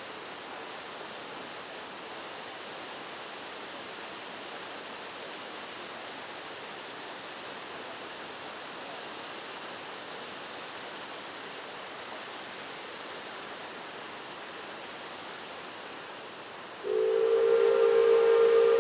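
A steady rushing hiss, then near the end the paddle steamer Vltava's steam whistle starts suddenly and blows loud and steady, several notes sounding together.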